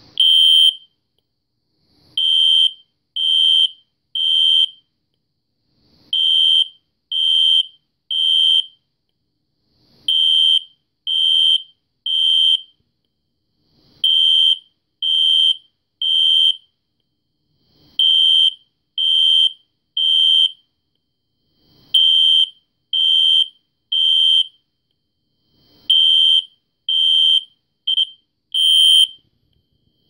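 System Sensor SpectrAlert Classic ceiling-mount horn strobe (PC24115) sounding in code 3, the temporal-three evacuation pattern. It gives groups of three high-pitched, extremely loud horn blasts of about half a second each, with a short pause between groups. Near the end one blast is cut short.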